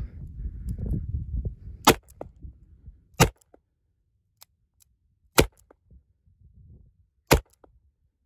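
Four shots from a Ruger .357 Magnum revolver firing .38 Super cartridges, the first about two seconds in and the rest at uneven gaps of one to two seconds.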